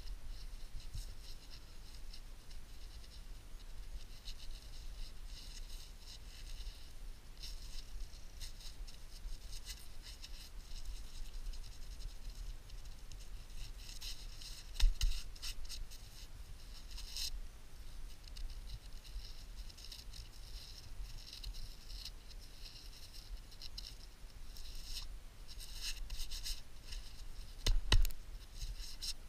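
Gloved hands rubbing, crumbling and scraping soil off a dirt-caked find, a steady scratchy rustle with a sharp knock about halfway through and a louder one near the end.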